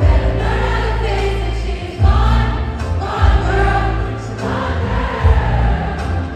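Live concert music played over an arena sound system: singing over heavy, deep bass, heard from the stands.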